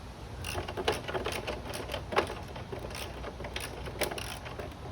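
Irregular metallic clicks and clinks of a wrench working the exhaust mounting bolts on a Honda CT125 motorcycle, over a low steady hum.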